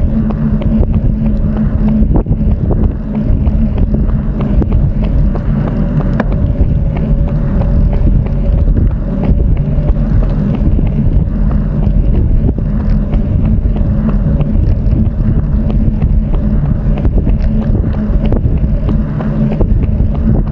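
Steady rushing wind noise on the microphone with a low, steady hum underneath.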